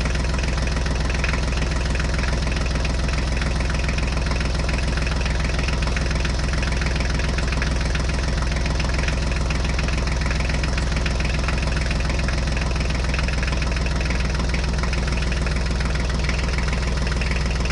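Tractor engine idling steadily, a fast even chug at a constant level.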